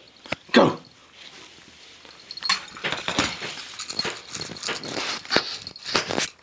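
A miniature dachshund gives one short, loud cry about half a second in, then a quick run of clicks and clinks fills the last few seconds, the sound of the dog at its food bowl at mealtime.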